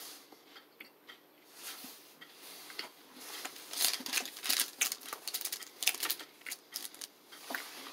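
Plastic granola bar wrapper crinkling as it is handled: scattered faint clicks at first, then a dense run of irregular crackles through the second half.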